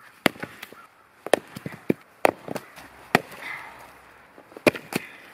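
Sharp wooden knocks, about seven at irregular intervals, as cut log rounds are set down and stacked on one another.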